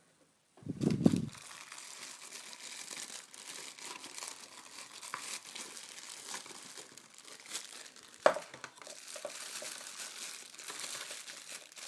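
Plastic packaging crinkling and rustling as items are unwrapped from a phone box, with a heavy thump about a second in and a sharp knock about eight seconds in.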